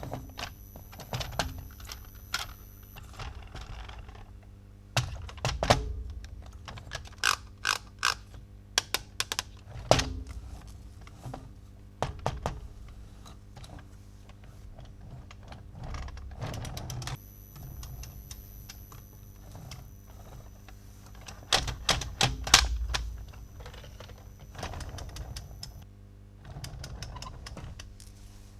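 Plastic toy track-set parts and toy cars being handled: irregular sharp clicks, taps and knocks of plastic on plastic, sometimes in quick runs of several clicks.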